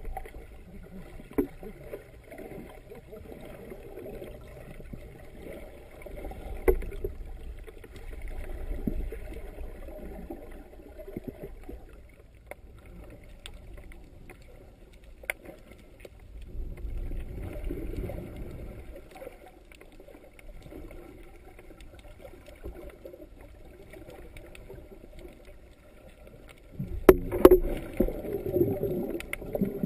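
Muffled underwater water noise heard through a GoPro's sealed dive housing, swelling up three times in low sloshing surges, with a few sharp clicks against the case.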